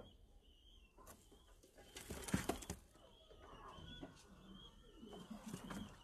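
Fancy pigeons cooing low in their box. About two seconds in there is a loud burst of scuffling and knocking.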